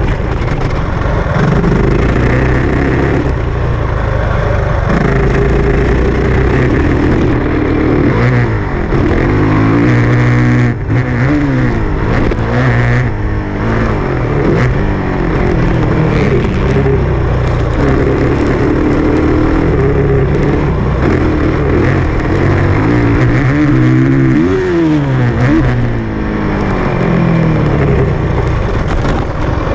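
Dirt bike engine ridden hard, revving up and dropping back over and over as the throttle is opened and closed and the gears change, over a steady rush of wind noise.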